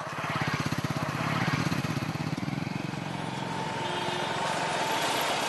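Small motorcycle engine running as the bike rides up and slows, with a rapid, even putter of firing pulses. It is loudest about a second and a half in, then eases a little.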